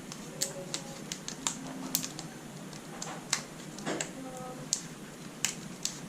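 Irregular light clicks and taps, about a dozen sharp ones, as a 2.5-inch SSD is handled and lined up against its drive connector.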